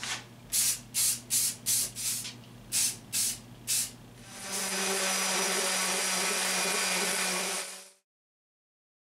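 Aerosol spray-paint can sprayed in about eight short bursts, then a random orbit sander runs steadily on a painted wooden piece for about three seconds and cuts off suddenly.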